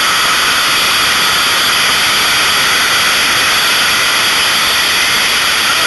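Loud, steady rushing hiss with no pitch or rhythm, unbroken throughout.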